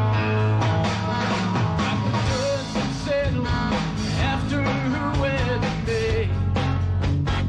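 Live band music: guitars over a bass line with a steady beat, and a melody line that bends in pitch.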